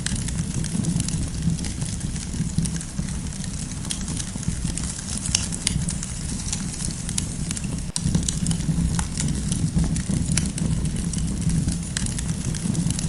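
Campfire burning, with irregular sharp crackles and pops over a steady low rumble of the flames.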